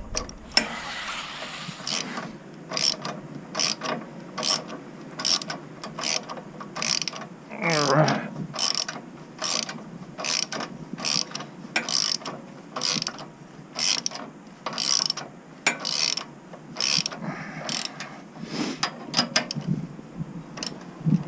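Socket ratchet tightening a 17 mm nut, its pawl clicking in short strokes about two a second as the nut is cranked down tight.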